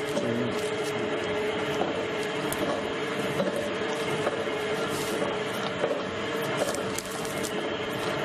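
Electric dough mixer running steadily, its hook kneading bread dough in a stainless steel bowl, with an even motor hum and a few light ticks.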